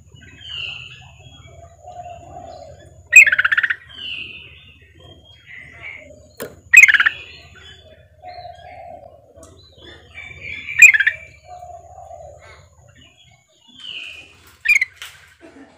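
Female yellow-vented bulbul (trucukan) calling: four loud, short, harsh chattering bursts about four seconds apart, with softer short notes between them. The calls are meant to draw a reluctant male into answering.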